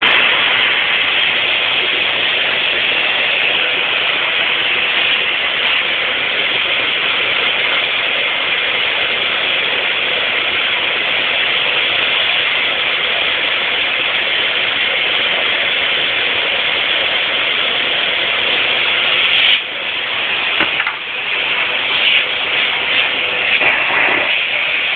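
Vacuum cleaner running, a loud steady rushing noise with a constant hum; about twenty seconds in it drops a little and turns uneven.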